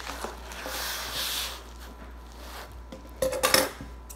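Cardboard box and packaging being handled and opened: a rustle, then a short burst of sharp crinkling and knocks near the end, the loudest part.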